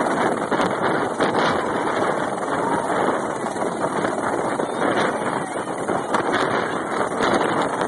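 Medical helicopter's turbine engine and main rotor running steadily as it hovers low and settles onto the landing pad.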